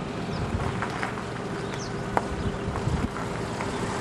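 Wind rumbling on the microphone outdoors, with a faint steady hum and a few light clicks.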